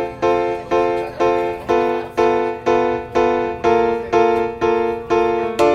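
Background music: keyboard chords struck at an even pace, about two a second, each fading before the next.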